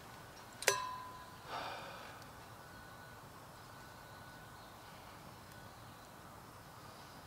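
A single sharp metallic clink about a second in, ringing briefly before it dies away, then a short soft rushing sound. A faint steady hush lies under both.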